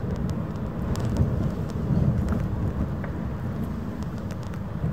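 Low, uneven rumble of wind buffeting the microphone on an open shoreline, with scattered faint ticks.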